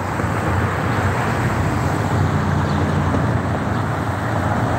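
Road traffic going by: a steady rush of vehicles, with an engine's low hum standing out in the middle.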